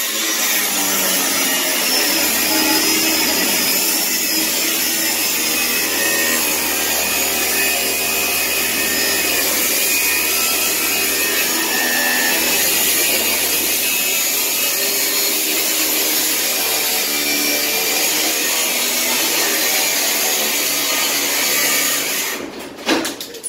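Angle grinder cutting through a steel padlock on a storage-unit door. It runs steadily under load, a loud whine over a grinding hiss, then stops about a second before the end.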